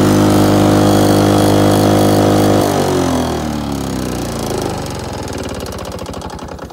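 Walk-behind gas lawn mower running steadily, then shut off about two and a half seconds in; the engine and blade spin down, the pitch falling and the sound fading over the next few seconds.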